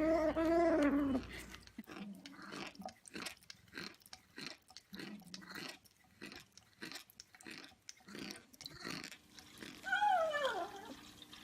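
A cat yowls at the start. Then come several seconds of rapid, irregular crunching and chewing clicks as a cat chews. About ten seconds in, a cat gives a meow that falls in pitch.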